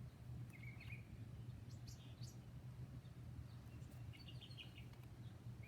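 Faint, scattered bird chirps, a few short calls, over a steady low hum.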